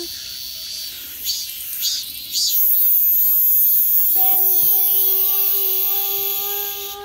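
Cicadas calling: a few pulsing bursts of high buzz about a second in, swelling into a loud continuous high-pitched drone that stops near the end. From about four seconds in, a person holds a steady sung 'wee-yong' note under it, imitating the cicada.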